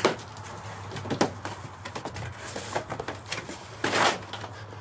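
Small cardboard box being opened by hand: a couple of sharp snaps and small ticks of cardboard and tape, then a short rasping cardboard scrape about four seconds in as a flap is pulled back.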